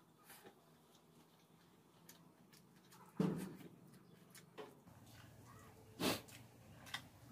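Close mouth sounds of someone eating rice and dried-fish gravy by hand at speed: small wet clicks and lip smacks, with two louder knocks, about three and six seconds in.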